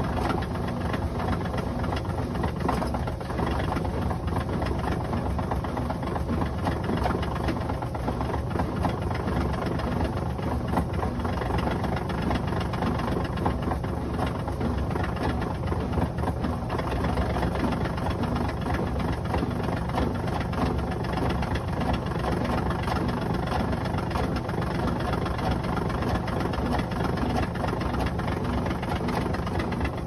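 Black+Decker 0.9 cu ft portable top-load washing machine running: a steady motor hum with a fast, continuous rattle of vibration.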